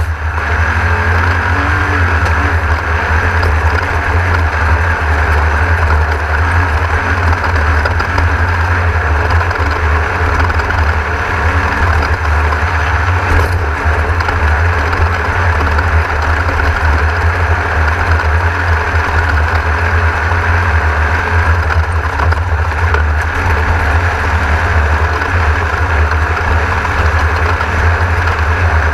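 Onboard sound of a Class 1600 off-road race car driven hard: its air-cooled VW engine runs continuously under load beneath a heavy, steady low rumble and a constant rushing noise.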